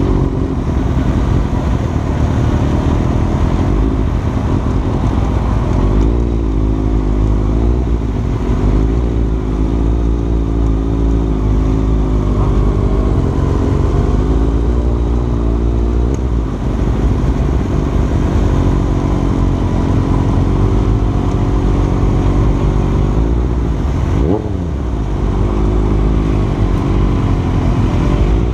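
Onboard sound of a sport motorcycle's engine running at a steady cruise, under heavy low wind rumble. About 24 seconds in, the engine's pitch briefly drops and comes back up.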